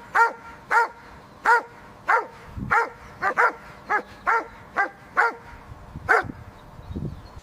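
Mountain zebra calling: a series of about a dozen short, high-pitched braying calls, roughly two a second, each rising and then falling in pitch.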